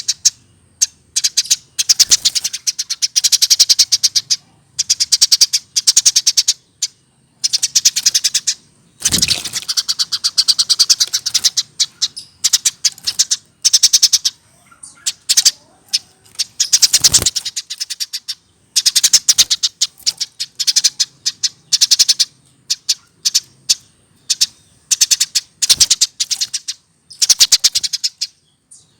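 Eurasian tree sparrow chattering: bursts of fast, repeated high chirps, each a second or two long, with short pauses between them.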